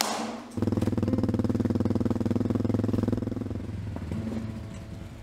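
Enduro-style motorcycle engine running past with a fast, even throb. It is loud for about two and a half seconds, then fades. A short hiss comes just before it.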